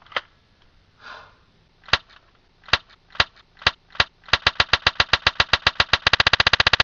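Gunfire sounds: a few single shots, then a rapid burst that speeds up into a fast machine-gun rattle near the end.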